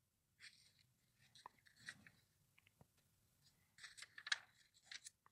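Glossy catalog paper rustling faintly under a hand, with soft crinkles and ticks and a slightly louder page turn about four seconds in.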